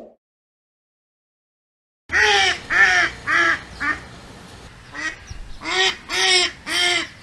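A bird calling: short calls, each rising and falling in pitch, begin about two seconds in, a run of four, a brief pause, then four or five more.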